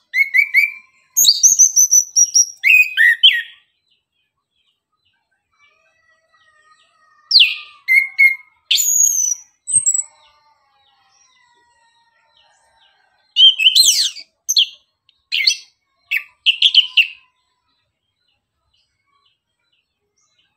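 Chestnut-capped thrush (anis kembang) singing: three bursts of quick, varied high whistled phrases, each a few seconds long, separated by pauses of a few seconds.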